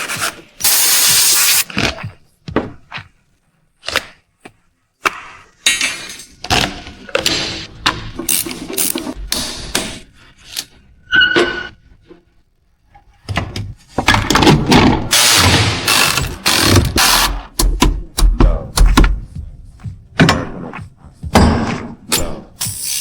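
Hand-tool work on a car: a busy run of knocks, clanks and short hissing bursts, with a brief metallic ring about eleven seconds in.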